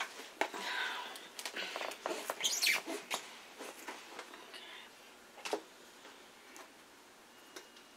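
Small clicks, taps and rustles of craft supplies being handled, busiest in the first three seconds, with one more sharp tap about five and a half seconds in.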